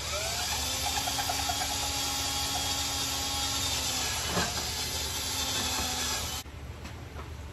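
Cordless drill boring a hole through a wooden board: the motor spins up, runs steadily for about six seconds with a brief knock about four seconds in, then stops suddenly.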